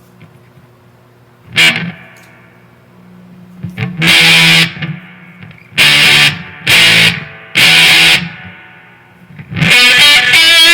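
Electric guitar through a maxed-out fuzz pedal into a Marshall DSL 40C amp, played as short, heavily distorted chord stabs: one about a second and a half in, four between about 4 and 8 seconds, then a held chord near the end. Between the chords the sound cuts down to a faint amp hum as the noise gate closes.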